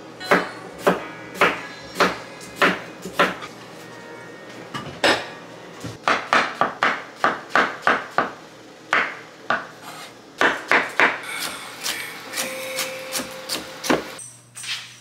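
Chef's knife chopping on a wooden cutting board, slicing mushrooms and carrots: a run of sharp knocks, about two a second at first and quicker in the middle.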